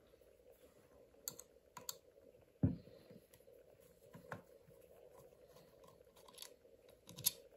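Scattered light clicks and taps of small RC car parts being handled while an ESC's cover and plugs are taken off, with one duller knock about two and a half seconds in, over a faint steady hum.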